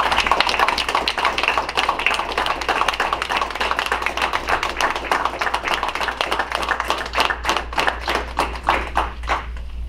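Applause from a small group of people, dense and steady at first, thinning to a few scattered claps near the end.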